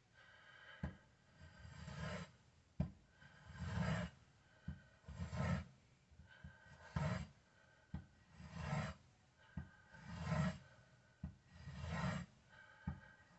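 Freshly sharpened kitchen knife making repeated slicing strokes: a rasping swell about every second and a half, with a short sharp tap between strokes.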